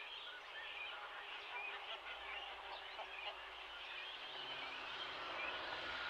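Many birds chirping and calling over one another in a steady, busy chorus. A faint low hum joins about four seconds in.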